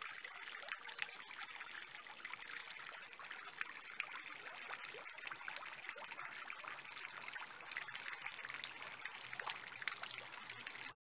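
Garden pond fountain: water jets falling onto the pond surface, a steady splashing trickle that cuts off suddenly near the end.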